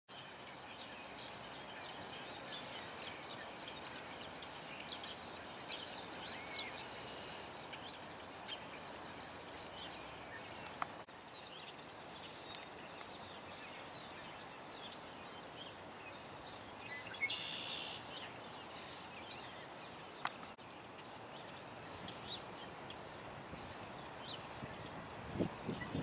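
Many short, high bird chirps and calls from several small birds over a steady background hum, busiest in the first half, with one longer buzzy call about two-thirds of the way through.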